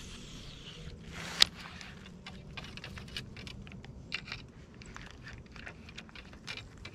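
Small irregular clicks and scrapes of fishing tackle being handled, with one sharp louder click about a second and a half in, over a faint low hum.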